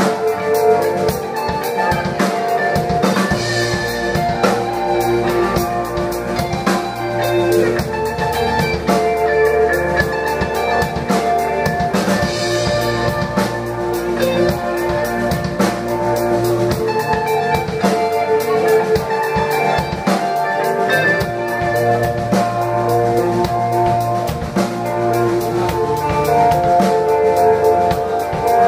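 Live alternative rock band playing a song, with drum kit, bass drum and guitar, at a steady loud level.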